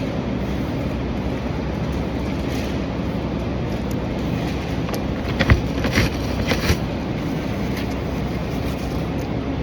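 Steady low drone, like a vehicle's running noise, with a few short crackles and clicks about halfway through.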